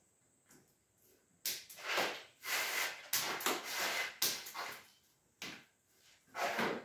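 Hand tool and hands removing the anchoring wire from a juniper bonsai's clay pot: a run of scraping, rustling noises from about a second and a half in, then a few more near the end.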